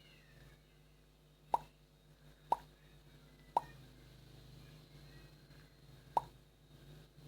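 Four short, sharp plops over a faint low hum: three about a second apart starting about a second and a half in, and a fourth after a gap of about two and a half seconds.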